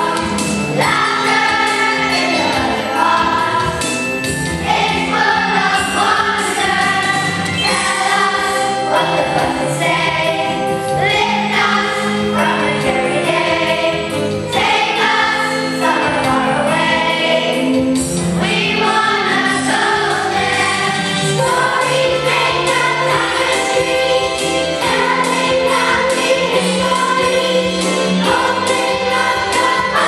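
A group of children singing a song together over an instrumental accompaniment with a steady beat.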